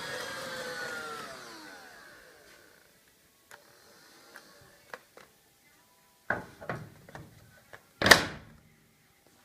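Motor of an old Bosch VD-0501 cordless vacuum cleaner whining, then spinning down with falling pitch after being switched off, fading out by about three seconds in. A few light clicks and knocks follow, then a sharp clack about eight seconds in, the loudest sound.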